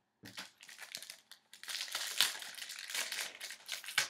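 Plastic wrapper of a hockey card pack crinkling irregularly as it is handled and opened, the crackling growing busier after about a second and a half.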